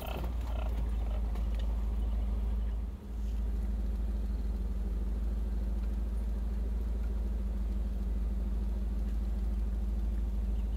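Pickup truck engine idling steadily, a low even hum heard from inside the cab, with a brief drop in level about three seconds in.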